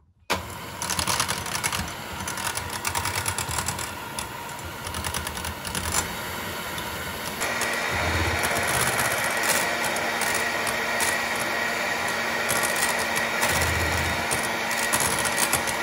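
Electric hand mixer whipping cream in a bowl, its motor running steadily with the beaters churning. About seven and a half seconds in it gets louder and a higher steady whine comes in.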